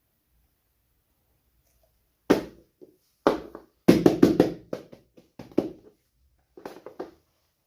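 Fidget toys being handled: an irregular series of short taps and thunks, starting a couple of seconds in, with a quick cluster in the middle.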